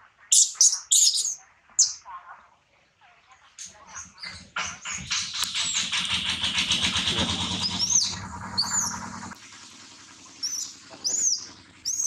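Shrill, high-pitched squealing cries of a baby long-tailed macaque in quick bursts in the first two seconds and again in the last few seconds. In between, a broad rushing noise with a low hum swells and fades over about five seconds.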